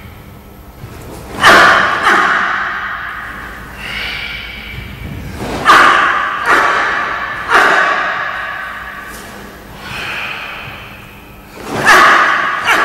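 Karate kata techniques: about six sharp snaps and thuds, in small groups with pauses between, from the gi cracking on fast strikes and bare feet landing on a wooden floor. Each hit rings on in a long echo of a large gym hall.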